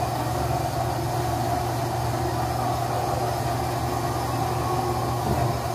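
Portable milking machine running: its vacuum pump motor hums steadily while the milking unit is on a cow.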